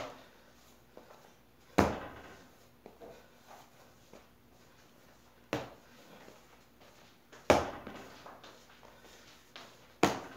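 A lump of white porcelain clay being wedged by hand on a marble slab: sharp thumps each time it is lifted and slapped down, roughly every two seconds, with softer handling noises between.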